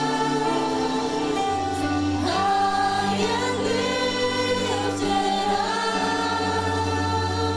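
Gospel vocal group singing in harmony, held notes with some gliding phrases over a low sustained bass.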